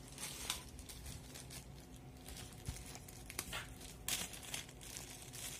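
Clear plastic packaging crinkling and rustling in the hands as a small plastic bag of parts is opened, in irregular faint bursts with a louder crinkle about four seconds in.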